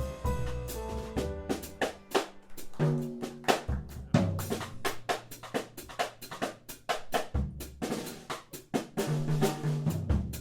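Jazz band music with the drum kit to the fore: busy snare, bass drum and rim-shot strokes over low held bass notes.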